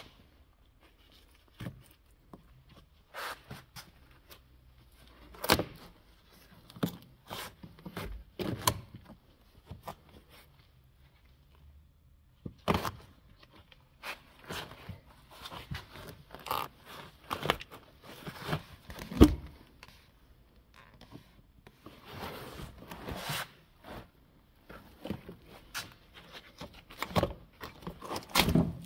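Irregular scrapes, knocks and tearing from carpet and felt underlay being pulled up off a car's floor pan by hand, with one louder knock about two-thirds of the way through.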